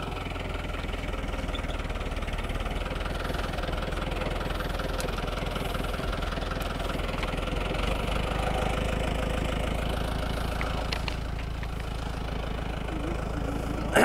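Farm tractor engine running steadily, a low even hum with a fine rapid beat, getting a little louder partway through.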